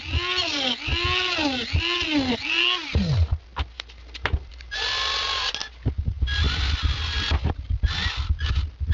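Rotary tool (Dremel) cutting into the plastic case of a glow plug controller module, its pitch dipping and recovering about once a second as the bit bites, then winding down about three seconds in. After a few handling clicks, a cordless drill runs in four short bursts as it drills into the case.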